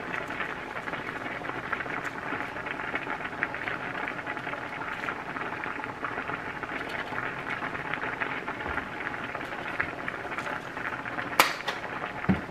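Steady crackling, bubbling sizzle of a pot cooking on the stove, with a sharp click and a low knock near the end.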